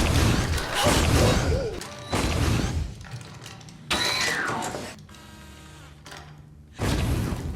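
Cyberman sound effects cut one after another: a noisy clattering passage, then three heavy mechanical impacts, each fading out. The second impact carries a brief rising and falling whine, and a low hum sits between the last two.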